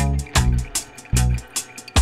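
Background music with a steady beat of drum hits over plucked bass notes.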